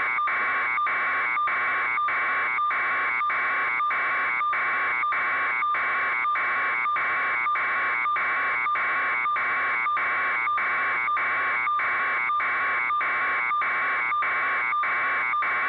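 Steady electronic buzzing tone that stays at one pitch, broken by short gaps about two and a half times a second.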